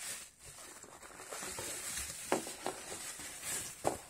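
Plastic bag or wrapping film rustling and crinkling as it is handled, with a sharp click about two seconds in and another near the end.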